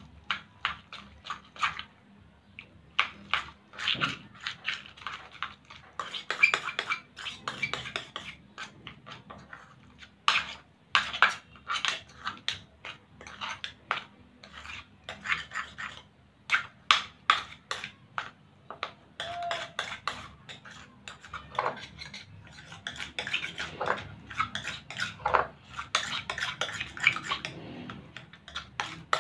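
Homemade glue-and-borax slime being squished and stretched by hand, making irregular sticky clicks and pops.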